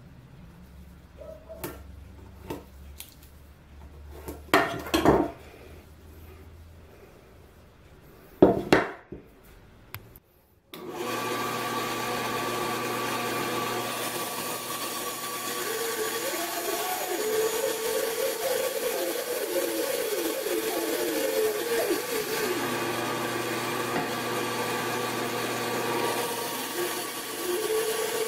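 A few sharp knocks from handling a ruler and wooden blank, then about ten seconds in a JIB bandsaw comes in abruptly and runs steadily. Its blade cuts through a square wooden blank with a wavering, rising and falling tone, twice.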